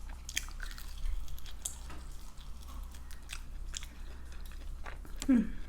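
Close-up chewing of chicken wings, with scattered wet mouth clicks and smacks. A short falling vocal sound comes near the end.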